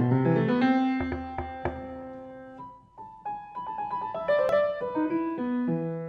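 Solo piano playing a slow, melodic theme in ringing chords. The first phrase fades away a little before halfway, and a new phrase of single notes and chords begins just after.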